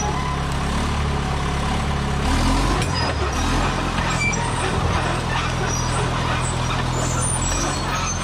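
John Deere crawler dozer's engine running steadily under load as it drags chained logs, with a shift in engine pitch about two seconds in and a noisy clatter over it.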